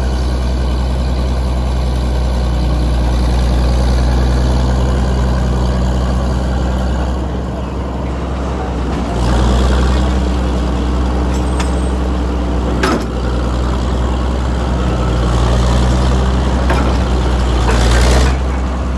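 Northwest 80D cable shovel's diesel engine running steadily as the shovel digs, swings and loads, its note dipping about eight seconds in and picking up again as it takes load. A single sharp metallic knock about two-thirds through and a brief rush of noise near the end.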